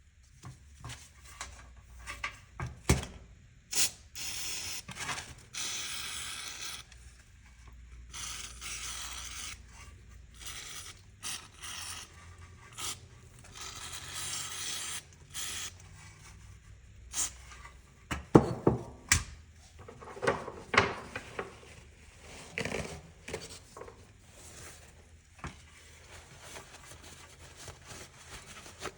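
Hands-on workshop work on a motorcycle: tools and parts being handled, with scattered clicks and knocks and several rubbing or scraping passes that each last a second or two.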